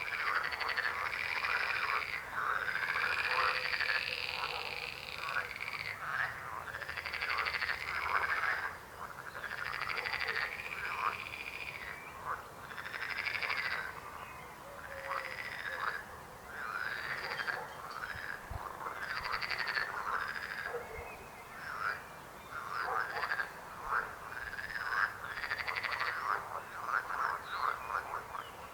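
Chorus of frogs croaking, many calls overlapping and repeating without a break.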